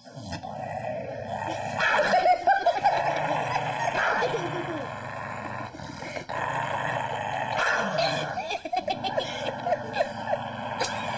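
A dog growling and whining over its chew bone in long, wavering, rising-and-falling sounds, guarding the bone.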